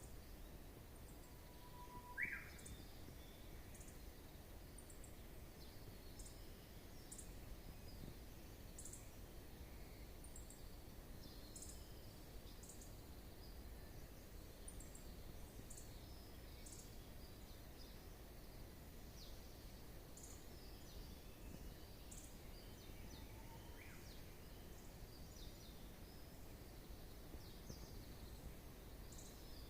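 Wild birds calling: many short, high chirps scattered throughout, with one louder call about two seconds in that holds a note and then sweeps upward, and a similar call near the end.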